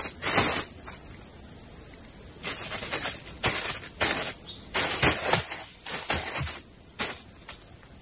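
Steady high-pitched drone of forest insects, with scattered short clicks and rustles from close handling, the loudest about five seconds in.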